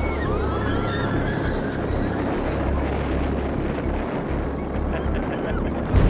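Geyser erupting: a steady rush of water and steam, with heavy wind rumble on the microphone. Onlookers' voices near the start.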